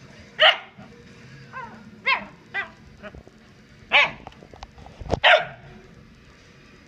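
Corgi giving short, sharp frustrated barks, about six in all, between bouts of scratching its paws at a fabric dog bed. A thump comes just before the loudest bark, about five seconds in.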